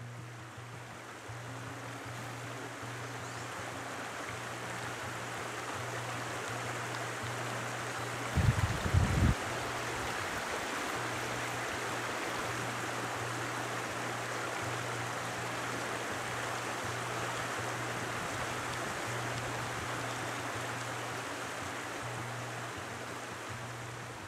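Steady rush of a shallow, rocky stream, with quiet background music carrying a bass line of even, repeated low notes underneath. About eight and a half seconds in comes a brief, loud low bump.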